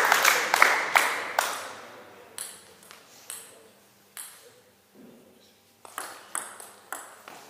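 Applause dies away during the first second and a half. Then come a few sharp clicks of a table tennis ball, and a quick rally of about five hits of ball on bat and table near the end.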